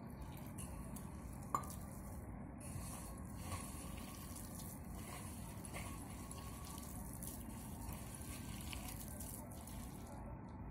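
A hand mixing thick besan (gram-flour) batter with chopped potato and onion in a steel pot: faint, wet stirring, with one light tap about one and a half seconds in.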